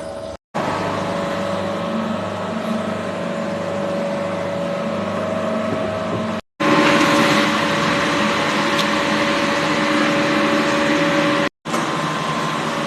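A steady mechanical hum with a rushing background noise and a few held tones. It cuts out abruptly for a split second three times.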